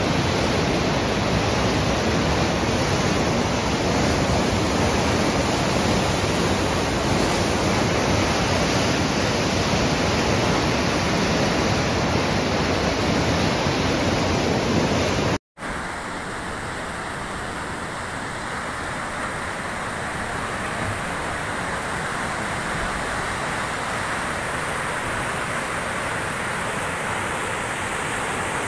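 Floodwater rushing and churning in a loud, steady rush. About halfway through, the sound drops out for an instant and resumes as a second stretch of rushing water, a little softer and duller.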